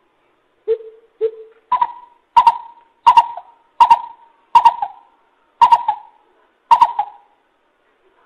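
Coucal (bubut) giving a series of deep hooting calls, about nine notes. The first two are lower, and the rest step up in pitch and come at a steady, slightly slowing pace.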